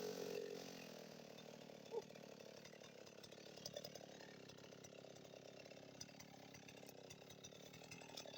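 Husqvarna 55 Rancher chainsaw idling faintly after being throttled down from full revs, with a single click about two seconds in.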